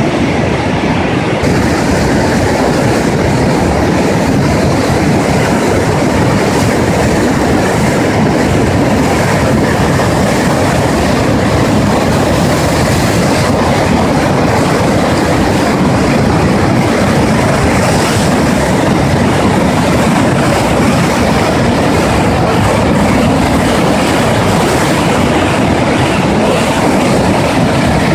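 Loud, steady rush of the Una River's whitewater rapids, running high and fast after rain.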